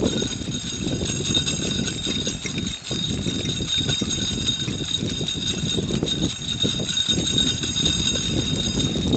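Wheels of a two-dog draft cart rolling over asphalt: a steady rumble, with a faint, steady high whine above it.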